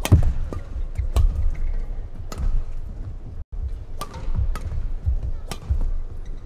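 Badminton rackets striking the shuttlecock in a doubles rally: sharp hits roughly a second apart, some closer together, over a steady low rumble of hall noise.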